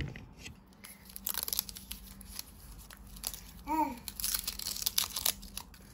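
Dry papery tunic of a tulip bulb crinkling and tearing as it is peeled off by hand, in a run of small crackles. A brief voice sound comes about four seconds in.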